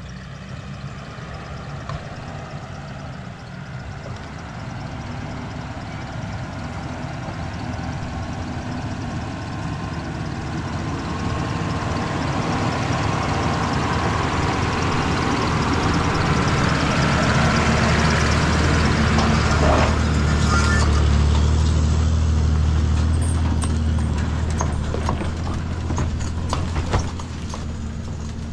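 A motor vehicle's engine running under way, getting steadily louder to its loudest about three-quarters through and then easing off, with knocks and rattles in the later part.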